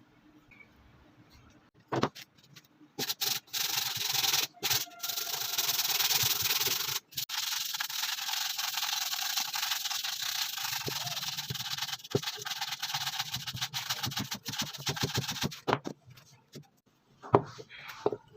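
Sanding: a steady abrasive rub that runs for about twelve seconds with a few brief pauses, after a single knock about two seconds in.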